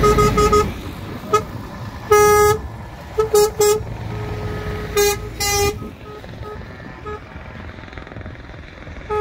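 A truck's horn sounding in a run of short toots and half-second blasts at one steady pitch, as a truck drives close past with engine and tyre rumble. The horn stops after about six seconds, leaving a quieter rumble of trucks.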